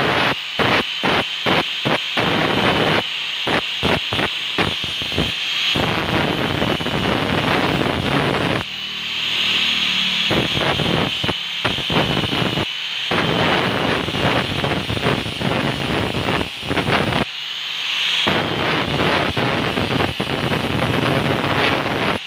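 Handheld angle grinder grinding a steel knife blade cut from a motorcycle brake disc, its motor whining steadily under the rasp of the disc on the metal. In the first few seconds the grinding breaks off and resumes several times a second in short passes, and twice, around nine seconds in and again near eighteen seconds, the disc comes off the steel and the motor whine rings out clearer.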